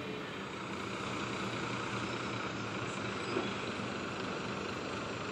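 Diesel engine of a Scania K410 double-decker coach running steadily at low revs as the bus waits to depart.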